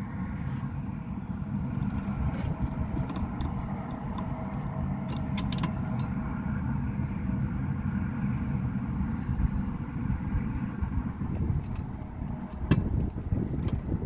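Steady low mechanical rumble of running equipment, with a few sharp clicks as a wire terminal is pushed onto the HVAC control board.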